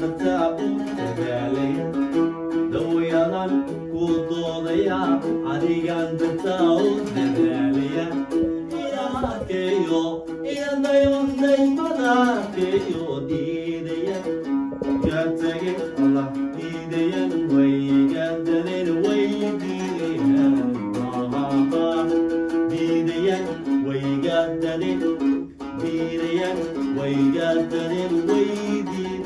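A man sings a song into a microphone, accompanied by an oud plucked steadily underneath the voice.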